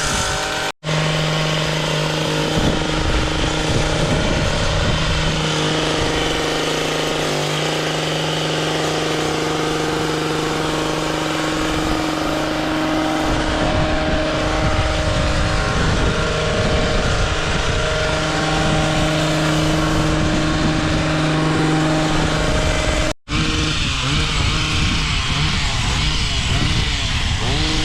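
An engine running steadily at an even speed, with two abrupt breaks where the sound cuts out and resumes.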